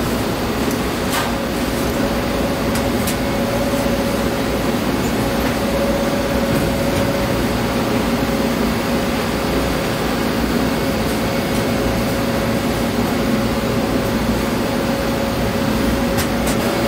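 Steady rush of cleanroom ventilation air with a low hum and a fainter higher tone running through it. A few faint clicks come through, one about a second in and a couple near the end.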